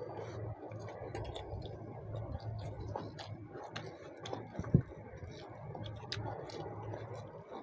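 Eating sounds from chicken curry and rice eaten by hand: small irregular clicks and smacks of chewing and of fingers and food on a plate, with one sharper knock about halfway through. A steady low hum runs underneath.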